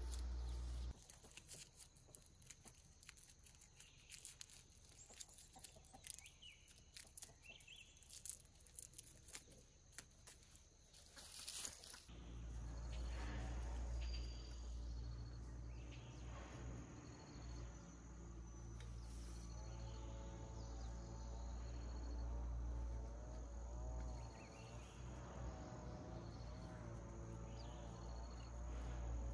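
Light clicks and rustles of bamboo stakes and twine being handled while a bean trellis is tied. About twelve seconds in this gives way to insects chirping in a short, evenly repeating pattern over a low steady hum.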